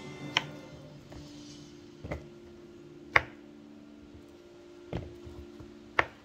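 Kitchen knife striking a cutting surface while slicing saba bananas: five sharp clicks spaced about a second apart, the loudest a little past the middle and near the end. A faint steady hum runs underneath.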